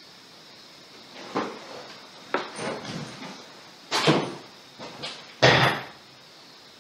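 A run of knocks, thuds and scrapes as a man pushes back a wooden chair, stands and walks across the room. The loudest knock comes about five and a half seconds in.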